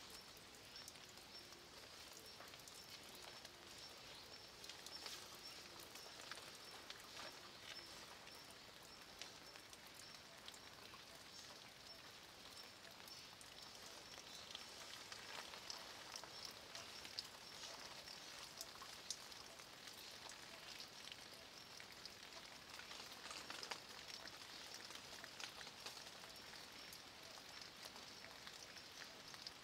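Light rain falling on a stone wall and the leaves around it, faint, with many separate drops ticking.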